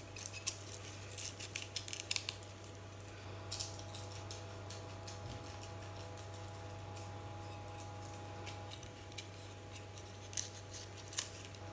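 Small knife trimming the root and papery skin off a whole garlic bulb: crisp little scrapes and snips in quick flurries during the first few seconds and again near the end, over a faint steady hum.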